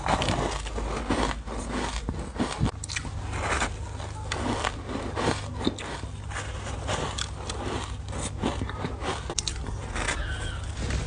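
Close-miked biting and crunching of a block of ice: many sharp cracks and crunches in quick, irregular succession.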